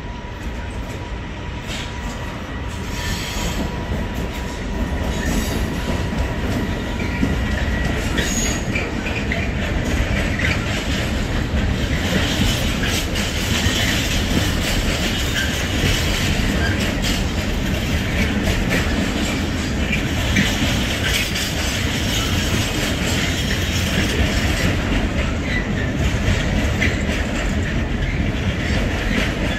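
Intermodal container freight train hauled by an E494 electric locomotive rolling past: a steady rumble of wagon wheels with rhythmic clacking over rail joints, which builds over the first several seconds and then holds. A high wheel squeal rises at times.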